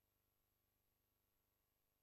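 Near silence: a silent film track with only a faint, steady hum and hiss.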